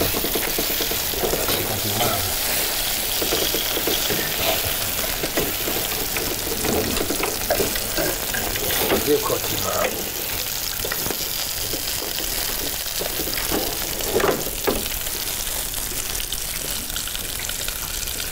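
Food frying with a steady sizzle, and a few light knocks over it.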